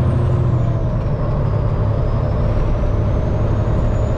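Peterbilt semi truck's diesel engine running steadily as the truck drives along, heard from inside the cab. A thin high whine drops in pitch about a second in and slowly climbs back.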